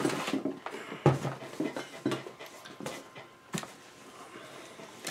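Handling noise as gear is rummaged in a bag and a plastic coffee canister is lifted out: irregular rustles and knocks, the loudest about a second in.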